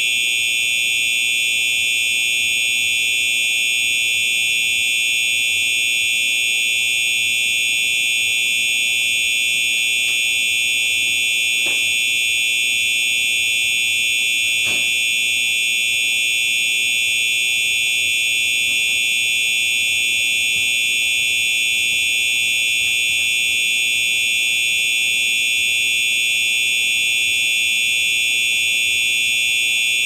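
Simplex fire alarm horn-strobe sounding a continuous, steady, high-pitched alarm tone without pulsing.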